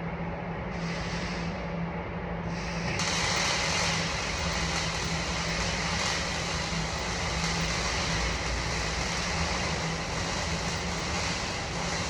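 Steady machine noise with a constant low hum underneath, turning brighter and a little louder about three seconds in.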